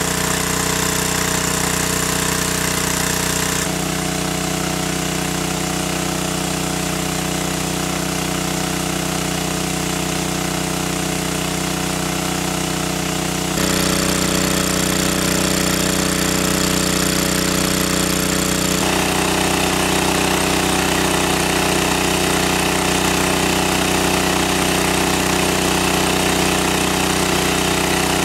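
Small engine-driven water pump running steadily, pumping water out of a pond, with water rushing from its discharge hose. Its tone shifts a few times along the way.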